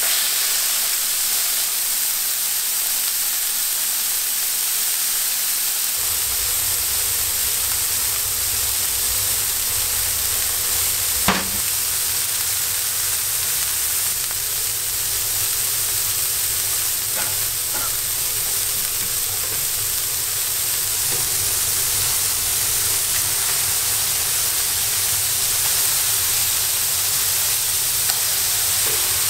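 Smashed ground-beef patties sizzling on a hot flat-top griddle, a steady frying hiss, with a single sharp knock about a third of the way through.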